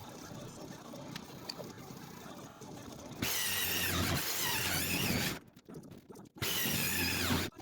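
A power tool runs in two bursts, the first about two seconds long and the second about one, with a high, wavering squeal over a steady low motor hum.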